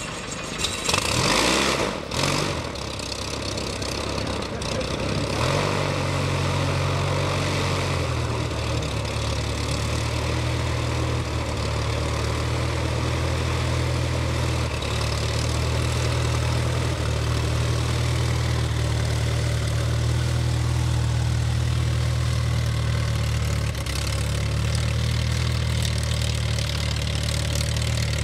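Pitts aerobatic biplane's piston engine starting, with a few loud, uneven bursts in the first two seconds or so, then settling into a steady idle with an even low drone.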